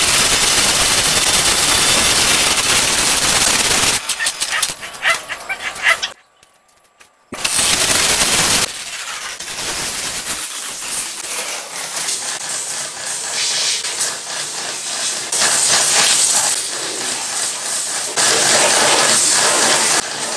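Electric pressure washer spraying a high-pressure water jet onto engine parts: a loud, steady hiss that breaks up about four seconds in, goes almost silent for about a second, then resumes unevenly.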